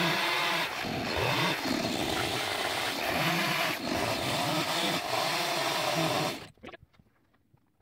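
Husqvarna XP two-stroke chainsaw running at full throttle as it cuts into a log, the pitch dipping slightly as the bar bites. The saw sound cuts off suddenly about six seconds in.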